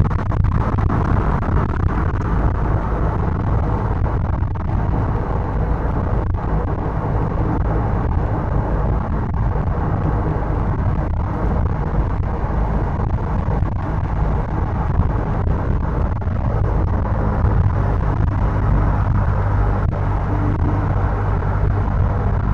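Steady engine and road rumble heard from inside a car's cabin while it cruises on a highway.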